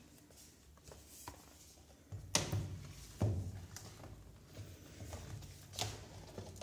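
Cardboard headphone box being handled and its fold-out cover opened: soft handling noises with a few short clicks and thunks of the packaging, the sharpest about two and a half seconds in.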